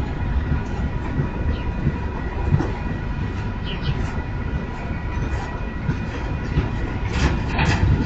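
Union Pacific intermodal freight train's stack cars rolling slowly past: a steady rumble of wheels on rail with irregular clacks, and a short high screech near the end.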